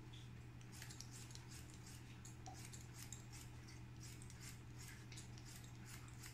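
Faint, crisp snips of hairdressing scissors cutting wet hair, many in quick irregular succession at about three a second, starting about a second in, over a steady low hum.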